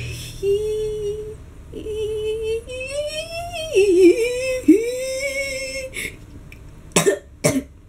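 A young girl's voice singing a wordless tune: long held high notes that slide up and down in pitch, with a short warble in the middle. Near the end come two short sharp sounds about half a second apart.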